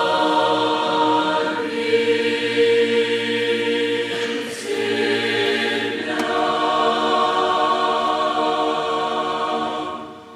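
Large mixed youth choir singing long held chords that change several times, the final chord dying away near the end.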